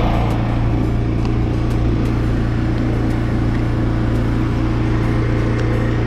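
Pressure washer's engine running steadily at a constant drone, with a hiss of spraying water over it.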